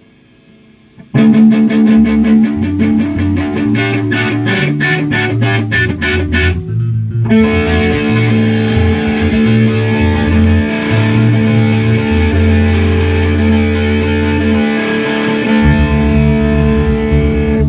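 Electric guitar and bass guitar playing a song, starting about a second in. The guitar strums in a quick even rhythm, breaks off briefly about six seconds in, then comes back with held chords over moving bass notes.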